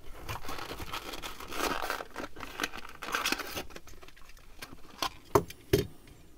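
Clear plastic blister pack being peeled and torn away from its cardboard card, crinkling and crackling, followed by two sharp clicks near the end.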